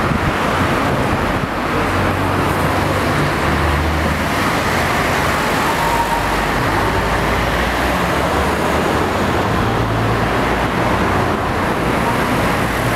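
Street traffic noise: a steady rush of passing cars, with a low engine hum swelling twice as vehicles go by.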